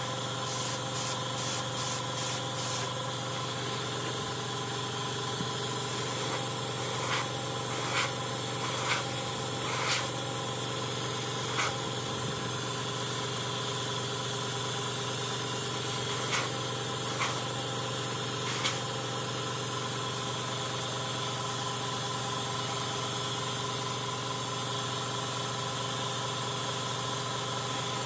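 Airbrush compressor running steadily, a motor hum with a high hiss of air, with a few light clicks and taps here and there.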